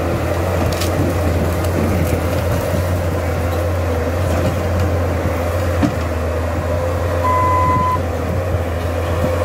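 Bobcat compact track loader's diesel engine running steadily under load as the machine pushes through brush. A short single beep sounds about seven seconds in.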